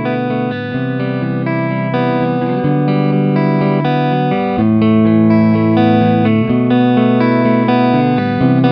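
Electric guitar playing held chords through a Hammond Leslie G rotary-speaker simulator pedal set to its 122 model. The volume rises in steps, about two seconds in and again halfway through, as the pedal's dry and wet levels are turned up.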